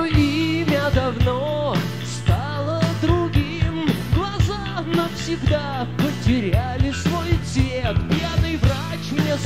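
Rock band playing: a male voice sings a melody over steady bass notes, electric guitar and a regular drum beat.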